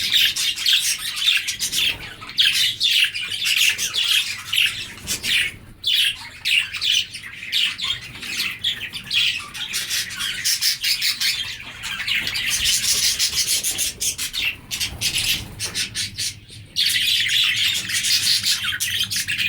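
A flock of budgerigars chattering and chirping together in a dense, continuous warble of many overlapping calls, with brief lulls twice.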